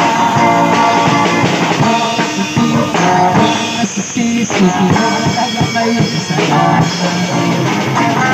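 Live rock music from a small band: an amplified electric guitar playing over a drum kit, with snare, bass drum and cymbal hits.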